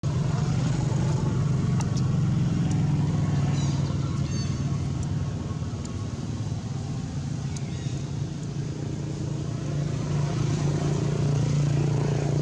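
An engine running steadily with an even low hum, a little louder near the end. A few faint, short high chirps come about four seconds in.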